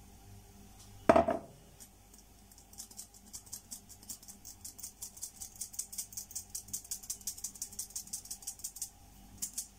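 Flour being sifted through a metal mesh sieve: the sieve's rim is tapped with the palm in a fast, even run of light rattling taps for about six seconds. About a second in, a single knock as a mug is set down on the countertop.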